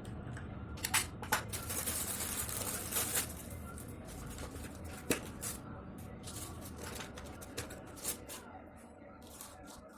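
Packaging being handled and torn open by hand: a couple of seconds of ripping and rustling, with scattered sharp clicks and taps of plastic before and after.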